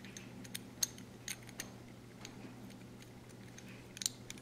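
Faint, irregular small metallic clicks and taps of a Ruger PC Carbine's breech face and bolt parts being worked into line over the firing pin, the sharpest about a second in. A low steady hum lies under them.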